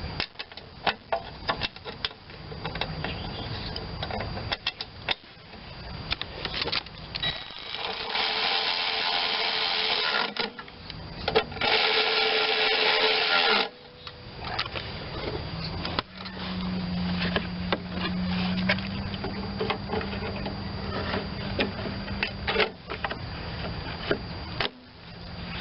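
Tools and metal parts clicking and clinking while the mower is put back together, with a power tool running twice for two to three seconds each near the middle. Later there is a steady low hum.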